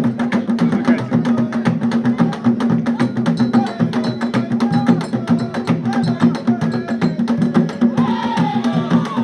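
Live traditional Central African dance music: drums and other percussion play a fast, dense rhythm, with a voice rising over it about eight seconds in.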